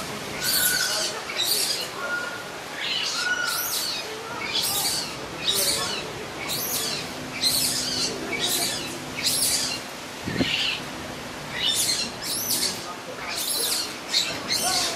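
Infant mantled guereza (black-and-white colobus) crying over and over in short, shrill, high-pitched squeals, about one a second: distress calls for its mother.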